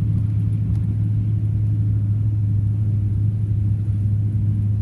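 Vehicle driving through deep floodwater, heard from inside the cab as a steady low rumble.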